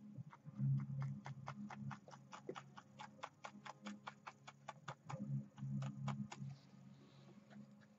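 Paintbrush tapping against a canvas in quick, even taps, about five a second, while dabbing in pine-tree foliage; the taps stop near the end.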